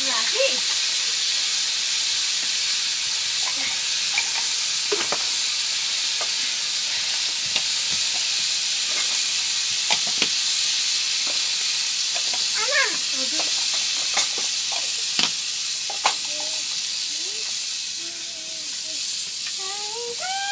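Buff curry sizzling as it fries in a pot, a steady hiss broken by occasional sharp clinks of stirring.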